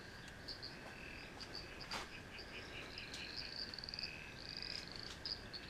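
Faint night chorus of small calling animals: repeated high chirps and pulsed trills, with a faint click about two seconds in.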